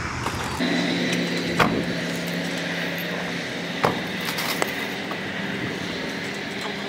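Steady hum of an idling vehicle engine, starting about half a second in, with a few sharp clicks on top, the loudest about a second and a half in and just under four seconds in.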